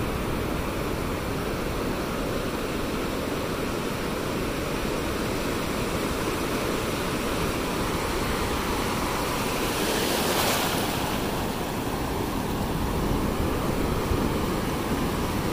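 Sea surf washing steadily onto a beach, with one louder wave breaking about ten seconds in.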